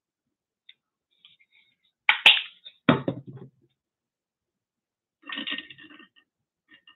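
Objects being handled on a cluttered art work table: two sharp knocks about two seconds in, a heavier clatter right after, then softer handling noise near the end.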